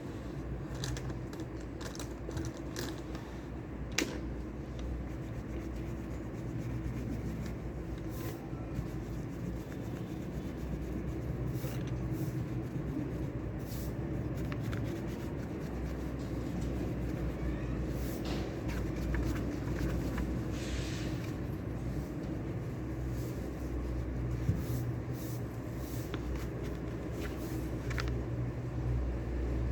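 Indoor room ambience: a steady low hum with scattered small clicks and brief rustles from someone handling things at a desk, and a sharper click about four seconds in.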